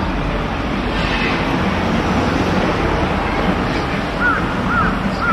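Steady rushing outdoor wind noise on the microphone. Near the end a bird gives short arched calls, three of them about half a second apart.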